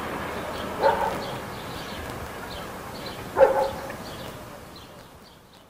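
A dog barks twice, about a second in and again about three and a half seconds in, over the rumble of a departing train that fades steadily away.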